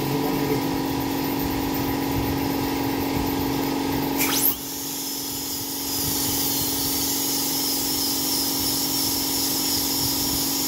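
Dental high-speed handpiece with its water spray, worked on a patient's tooth over a steady hum of dental-unit machinery. A quick rising whine about four seconds in, then a high steady whine with hiss.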